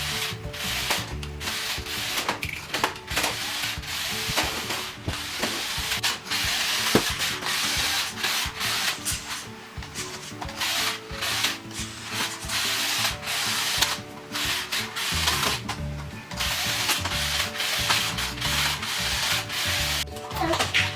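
Remote-control toy car running, its small electric motor and plastic gears whirring and its wheels scraping over the ground. It stops and starts several times.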